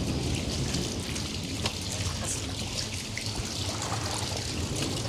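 Heavy rain falling, with water trickling and pouring steadily and scattered sharp ticks of drops striking.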